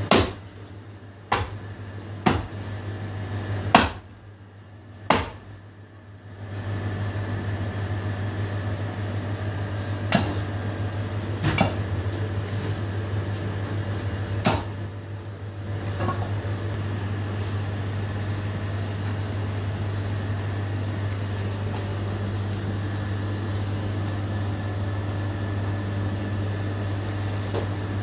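Heavy 3 kg forged butcher's axe chopping through beef onto a wooden chopping block: about eight sharp, unevenly spaced chops in the first fifteen seconds, then no more. A steady low hum runs underneath.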